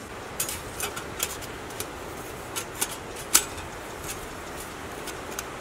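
Thin titanium stove panels and a perforated grate clicking and tapping against each other as they are slotted together by hand: a scatter of light ticks, the sharpest a little past the middle, over steady background noise.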